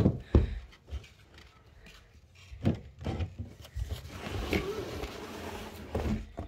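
Household objects being handled and put away: a series of dull knocks and thumps with some rustling between them.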